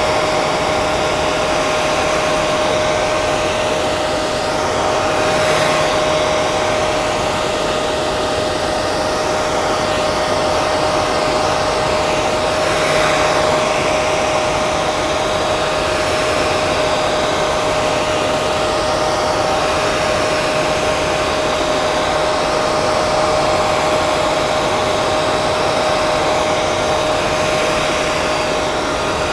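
Hair dryer running steadily: a rush of blown air with a constant whine from its motor.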